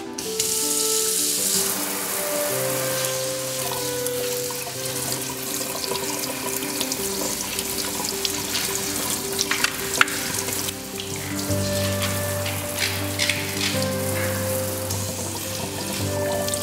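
Kitchen tap water running and spraying over a bunch of celery stalks in a sink, a steady splashing hiss that comes on sharply at the start, with a few sharper splashes around the middle. Background music with sustained notes plays underneath.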